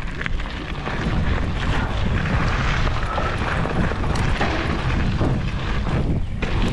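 Mountain bike rolling fast down a dirt singletrack: a steady rush and rumble of tyres on dirt and wind over a handlebar-mounted microphone, with small rattles from the bike.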